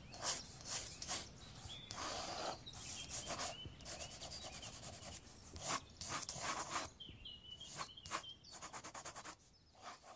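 Pencil scratching and shading on paper in quick, uneven strokes, with a few short bird chirps mixed in. The strokes thin out and fade near the end.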